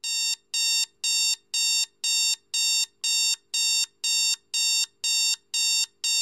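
Electronic alarm clock beeping: short, high-pitched beeps repeating evenly at about two a second.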